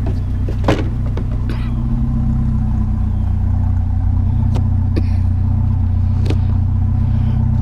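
Pickup truck engine running steadily with a low hum, and a few short sharp clicks and knocks on top, the loudest under a second in.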